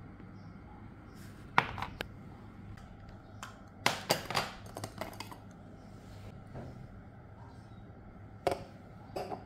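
Light knocks and clinks of kitchen things being handled and set down on a table, in a few scattered groups, with a bowl set down on an electronic kitchen scale near the end.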